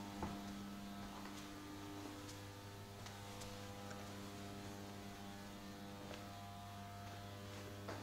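Faint, steady electrical mains hum, a low buzz that does not change, with a few soft clicks.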